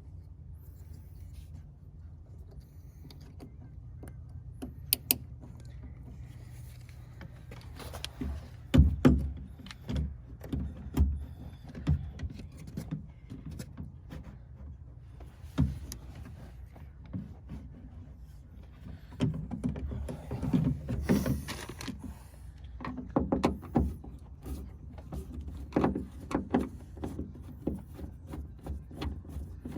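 Irregular clicks, knocks and plastic rattling of car-door parts and wiring connectors being handled while the aftermarket speaker harness is plugged into the factory wiring, with the busiest stretches about eight seconds in and again around twenty seconds in.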